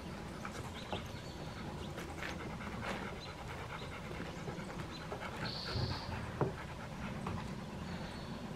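Rottweiler panting steadily.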